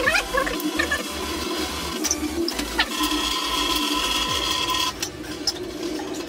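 Water pouring into a bucket as it fills. About three seconds in, a steady high-pitched tone joins for just under two seconds and then stops.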